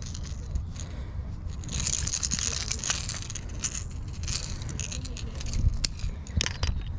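Close handling noise: crackly rustling through the middle and a few sharp clicks near the end as fishing gear and a landed bass are handled over gravel, under a steady low rumble.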